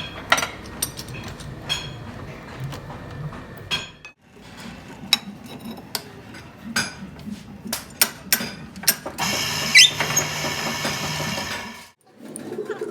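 Metal tools and parts clinking and knocking: a run of sharp metallic taps, irregular rather than rhythmic. About nine seconds in comes a steadier stretch of noise carrying a brief rising whine.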